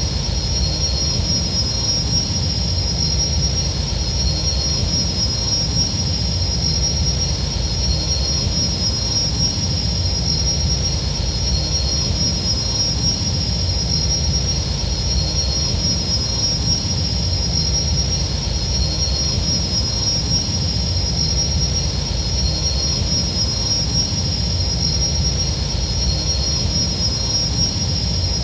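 Z-95 Headhunter starfighter exterior engine sound effect, looping steadily: a low rumble under an even, high-pitched whine.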